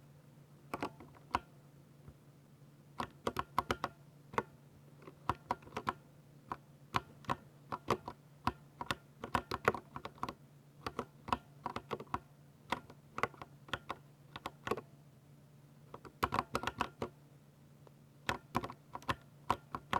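Typing on a Ducky 60% mechanical keyboard with silver switches: irregular runs of quick key clacks broken by short pauses, over a faint steady low hum.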